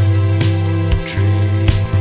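Instrumental passage of a band's song: guitar over sustained low bass notes, with sharp percussive hits about every half second.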